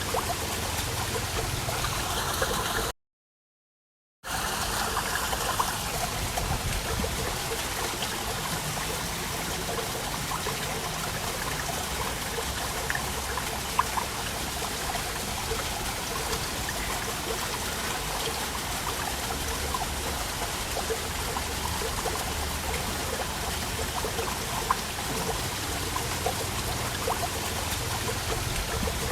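Waterfall, water rushing and splashing steadily. The sound cuts out completely for about a second roughly three seconds in, then resumes unchanged.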